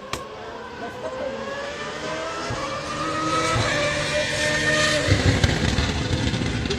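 Auto GP single-seater race car's V8 engine accelerating towards the listener, its pitch rising and the sound growing steadily louder. It is loudest from about five seconds in as the car draws close. A short sharp click sounds right at the start.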